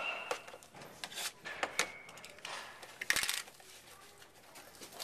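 Trading card box being opened by hand: cardboard and plastic wrapping rustling and clicking, with a short scratchy rip about three seconds in.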